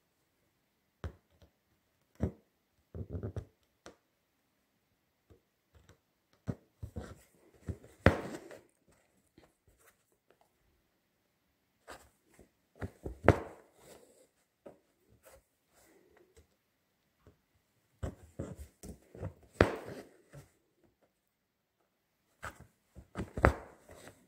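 Needle and embroidery thread being drawn through fabric stretched taut in a wooden embroidery hoop: short scratchy rasps and taps in groups every five seconds or so, one for each stitch pulled through.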